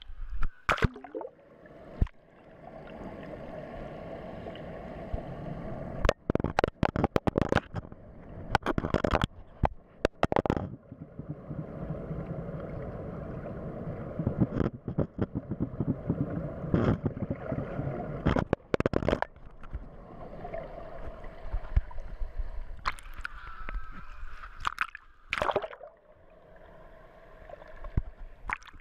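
Pool water gurgling and sloshing around a waterproof action-camera housing as it moves in and under the water, muffled, with many sharp knocks and clicks.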